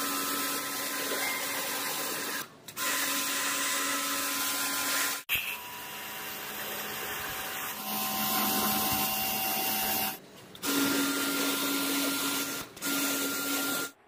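Pressure washer jet spraying water onto a window air conditioner's coil and front grille: a steady hiss with the machine's motor running beneath. The spray cuts off briefly three times.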